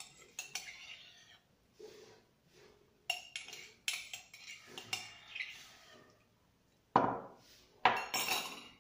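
Metal spoon scraping and clinking inside a ceramic mug as the last of the ice cream is scooped out, with scattered clicks, then two louder knocks near the end.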